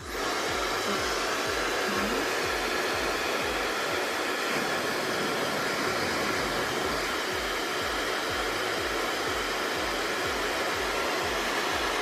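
Bopcal high-speed hair dryer switched on and blowing at a steady, even rush of air, relatively loud.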